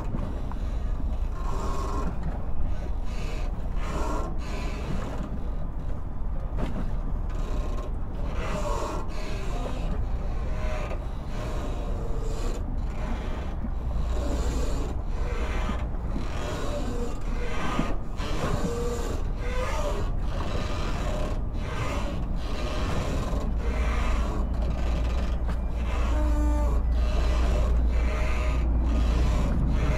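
Industrial canal-port ambience: a steady low rumble that grows louder about two-thirds of the way through, with irregular creaks, squeaks and scrapes of moving parts scattered over it.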